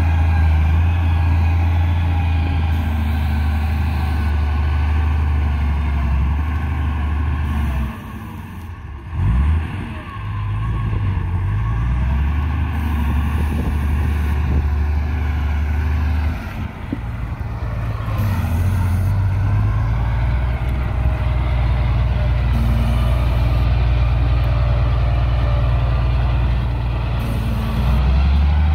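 Komatsu GD625A motor grader's diesel engine running steadily under load as the machine grades dirt. Its note drops briefly about eight seconds in and again around sixteen seconds, then picks back up.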